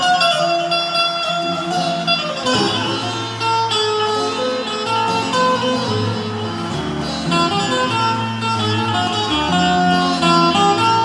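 Indian banjo, a keyed zither with an electric pickup, played through an amplifier: a plucked melody of quickly changing notes over lower notes that are held about a second at a time.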